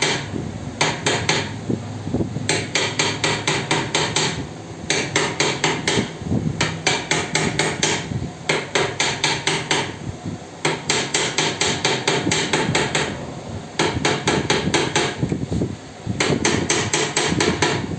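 Rapid light metal-on-metal taps, about six a second in bursts of a couple of seconds with short pauses: a steel file striking the worn shaft end of a stand fan motor. The shaft is being punched so its surface rises and the loose bearing seats tightly again.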